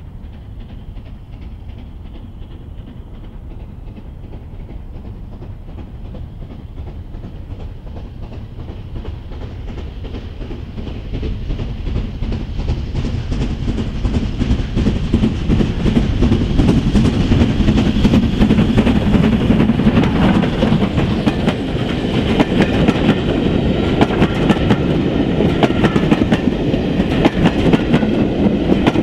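Southern Railway Q class steam locomotive 30541 approaching with a passenger train, working hard and getting steadily louder. It then passes close by, and its coaches roll past with the clickety-clack of wheels over rail joints.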